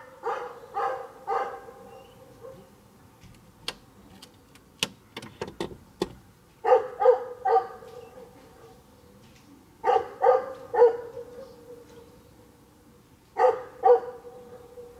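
A dog barking in four short bursts of two to four barks each. A few sharp clicks sound between the first and second bursts.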